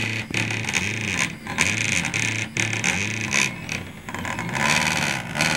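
Stepper motors of a homemade 3D printer whining through short print moves, the pitch jumping to a new note every half second or so, over a steady hiss.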